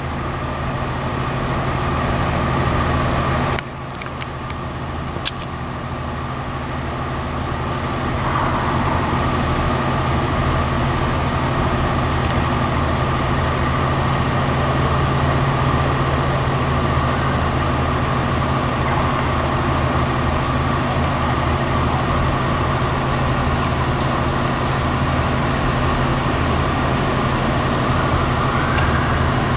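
Steady low hum of an idling motor vehicle engine, dipping briefly about three and a half seconds in.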